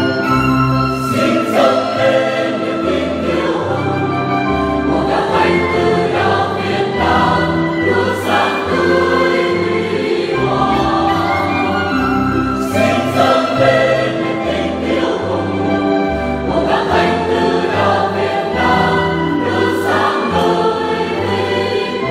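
Mixed choir of men's and women's voices singing a Catholic hymn, with instrumental accompaniment including a violin. The notes are sustained, with steady bass notes under the voices.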